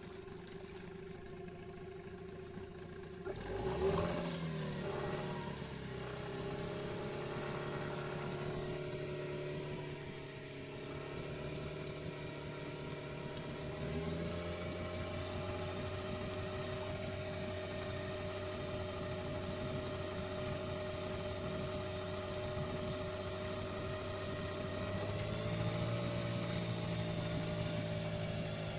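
Old 15 hp Yamaha two-stroke outboard running at idle in a test barrel of water. About four seconds in the revs briefly swell up and fall back; the engine's pitch shifts around the middle and rises a little near the end.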